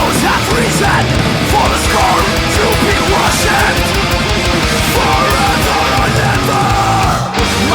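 Heavy metal recording: dense distorted guitars over pounding drums, with a brief drop in level near the end.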